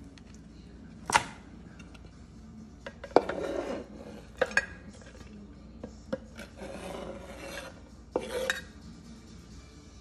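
Kitchen knife cutting grilled chicken on a wooden cutting board: sharp knocks of the blade on the board about 1, 3, 4.5 and 8 seconds in, with rasping scrapes between as the slices are pushed off the board into a glass dish.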